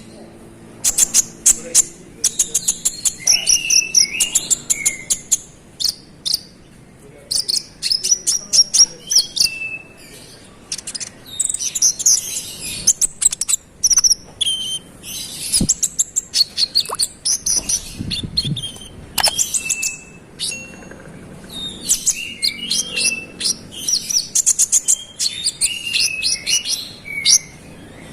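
Konin, a small sunbird kept as a cage bird, singing vigorously: bursts of rapid high-pitched chirps and fast trilled runs, broken by short pauses.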